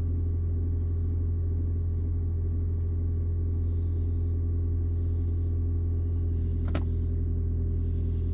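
Car engine idling, a steady low hum heard inside the cabin, with one short click about seven seconds in.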